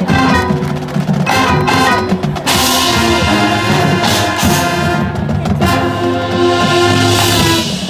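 High school marching band playing loud brass chords over drums and front-ensemble percussion, the full-band held chord cutting off just before the end.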